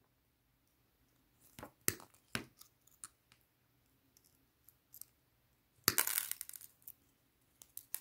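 Side cutters snipping the thin wire hook off a metal earring. A few light clicks of the jaws and wire come first, then a sharper snap about six seconds in, followed by small metallic clinks.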